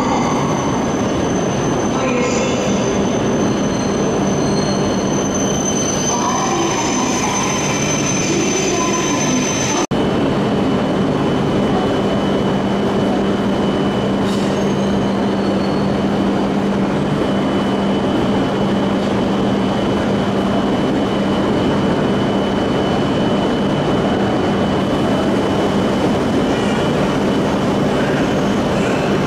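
Shinkansen trains at a station platform: a steady low hum and a constant high whine from the trains' electrical equipment and blowers, over a bed of noise. The sound breaks off for an instant about ten seconds in, and the whine shifts lower after it.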